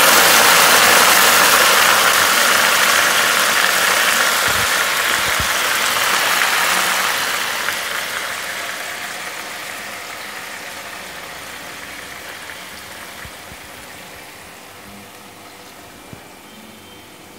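Water poured from a kettle into a hot iron wok of frying chicken, sizzling loudly at first and fading steadily as the pan cools under the added water.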